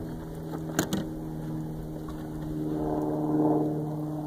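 A motor runs steadily, making a continuous even drone, with one sharp tap a little under a second in.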